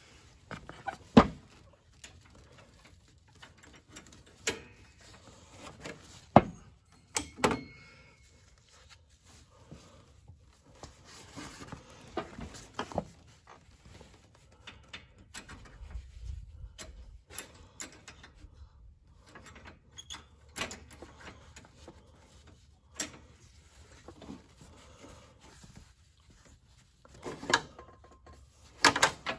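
Hand tools and metal parts clinking and knocking on a riding mower's deck: irregular sharp metallic taps and clanks, some ringing briefly, the loudest about a second in and about seven seconds in.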